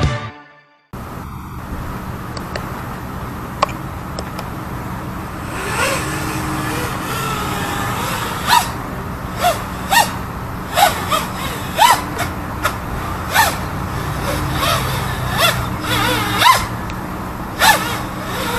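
FPV quadcopter motors and propellers heard from the ground, whining in about a dozen short throttle bursts that rise and fall in pitch over a steady low hum. The end of intro music cuts off within the first second.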